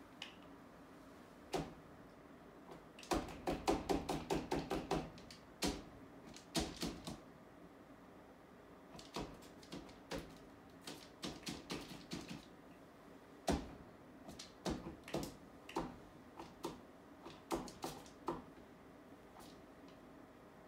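Sharp taps and clicks of a painting tool striking a wall panel during mural painting. A fast run of about a dozen taps comes about three seconds in, followed by scattered groups of taps.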